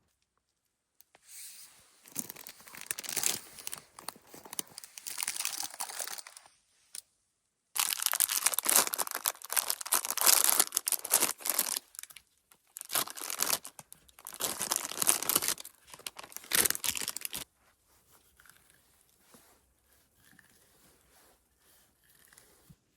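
Something being torn and crumpled: several stretches of loud crinkling and tearing noise that break off abruptly about three quarters of the way in, leaving only faint small handling sounds.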